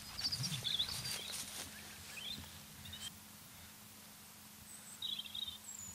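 Small birds chirping in short scattered phrases, with a couple of very high thin notes near the end. Soft footsteps on grass in the first second or so.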